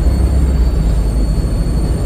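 Volvo B7RLE bus's six-cylinder diesel engine running with a steady high turbo whistle over a low rumble.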